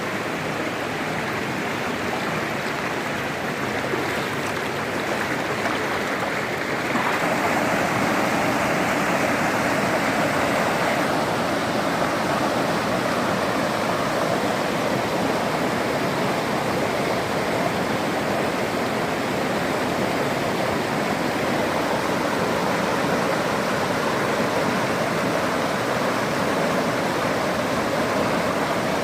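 Steady rush of falling and running water from a waterfall, a little louder from about seven seconds in.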